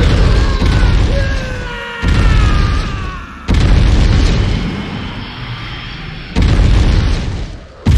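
Heavy impact booms from an animated fight's sound effects, about five in a row, each hitting suddenly and fading slowly, as a body smashes into and through mountain ice.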